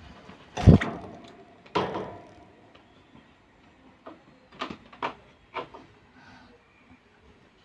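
Knocks and rattles from a wire birdcage as the common bulbul inside moves about and lands on its perch. A heavy thump with a short ring comes under a second in, another knock about a second later, then three sharper clicks around five seconds in.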